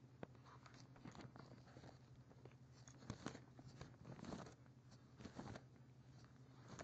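Near silence: a steady low electrical hum with faint scattered clicks and a few brief soft rustles about midway.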